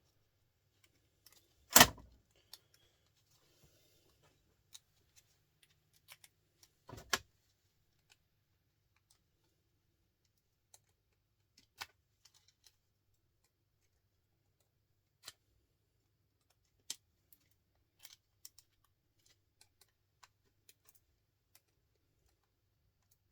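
Sparse clicks and small knocks of hand tools and parts being handled as electronic scrap is taken apart, with two louder knocks, one about two seconds in and one about seven seconds in.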